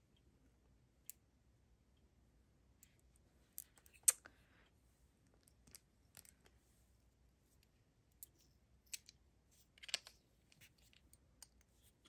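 Faint, scattered clicks and taps of gemstone and crystal beads knocking together and a bead-knotting tool being handled as a knot is tied in the necklace cord. The sharpest clicks come about four seconds in and around ten seconds.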